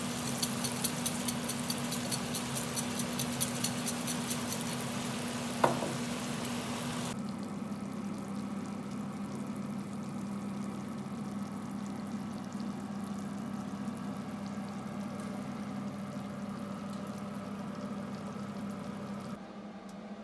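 Sayote and ground meat sizzling in a frying pan on a gas stove while a black pepper grinder clicks rapidly over it for about five seconds, with one brief sharp sound just after. After that a quieter steady hum and hiss carries on for most of the rest.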